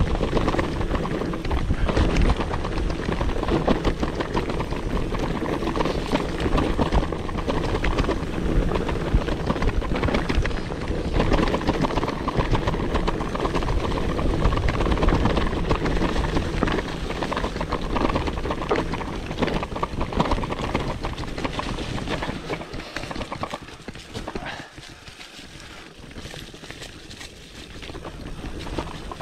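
Mountain bike going down a rough dirt downhill track: tyres running over the ground and the bike rattling with many small knocks. The noise drops for a few seconds near the end, then picks up again.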